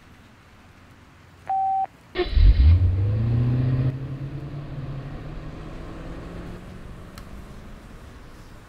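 A short electronic phone beep, then a BMW 7 Series sedan's engine revs loudly about two seconds in as the car accelerates away. Its engine sound then fades slowly.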